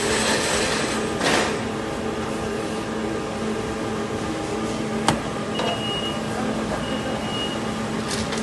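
Steady hum of running packaging machinery with a constant low drone. A single sharp click comes about five seconds in, followed by two short high-pitched tones.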